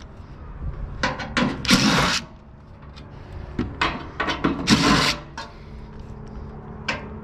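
Irregular clanks, knocks and scraping of hand tools on the sheet-metal housing of an HVAC blower as its screws are worked loose to free the motor.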